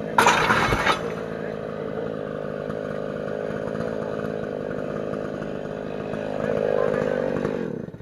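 A felled tree crashes down onto a metal pipe frame, one short loud crash at the start. A chainsaw then runs steadily, swells briefly near the end and cuts off suddenly.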